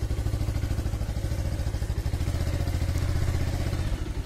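Motorcycle engine running at low speed, a steady, rapid low pulsing as the bike is ridden slowly.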